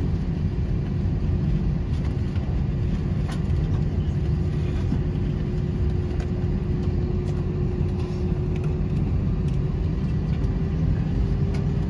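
Inside the cabin of an Airbus A320 taxiing: the jet engines at idle make a steady low rumble with a faint steady hum above it.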